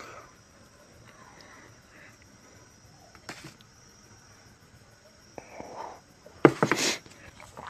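Curry gravy poured from a small steel bowl onto a plate of rice, with a short clatter of clinks and knocks from the bowl and plate about six and a half seconds in. Crickets chirp steadily in the background.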